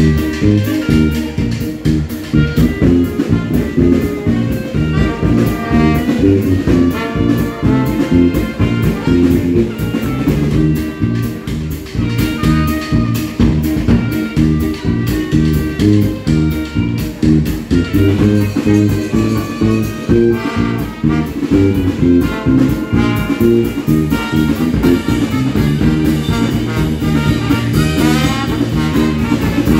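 Live Dixieland jazz band playing an upbeat swing number: trumpet, clarinet and trombone over electric bass, electric guitar and drum kit. The trumpet and trombone play together near the end.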